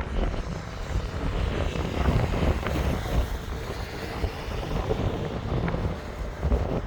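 Gusty wind buffeting the microphone over a low, uneven rumble, with a few faint clicks.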